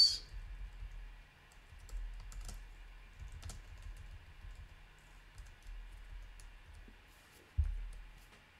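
Typing on a computer keyboard: scattered, irregular key clicks, with one low thump near the end.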